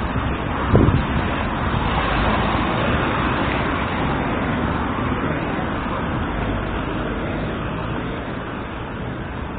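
Road traffic noise: a steady rush that swells about two to three seconds in and then slowly fades, with a low thump about a second in.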